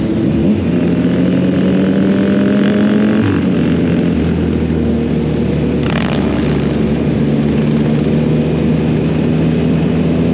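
Motorcycle engine pulling under acceleration, its pitch rising for about three seconds, then dropping with a gear change and running on steadily. A brief burst of noise about six seconds in.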